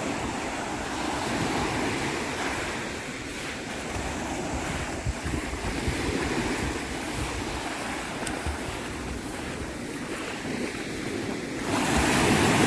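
Sea surf washing on the shore, with wind on the microphone; a louder rush of water comes near the end.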